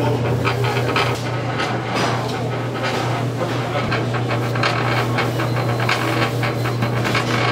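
Steady low machine hum with irregular clicks, taps and knocks of kitchen work on top.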